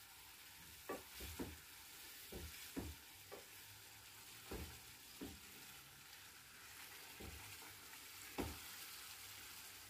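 Berbere-and-oil sauce sizzling faintly in a frying pan while a wooden spoon stirs it, with about a dozen irregular soft knocks and scrapes of the spoon against the pan.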